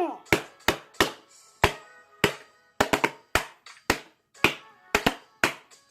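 Music made of sharp percussive hits, about two to three a second in an uneven rhythm, each with a short ring.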